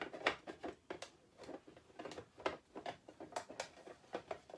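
Irregular clicks and taps of hard plastic storage pieces being handled as a topper is worked onto an open storage box.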